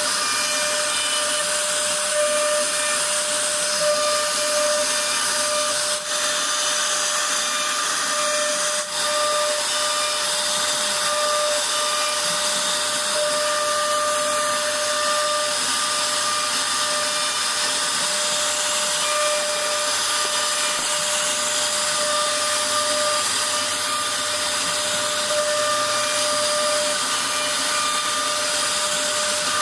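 CNC wood router spindle running at speed while its bit carves a relief pattern into a wooden board: a steady whine over the hiss of the cutting.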